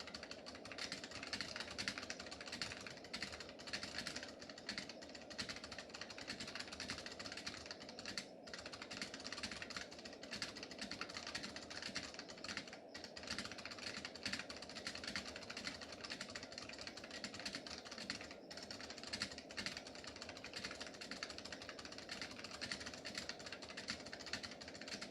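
Continuous fast typing on an AT&T Enhanced buckling-spring keyboard: a dense run of key clacks, broken by a few brief pauses.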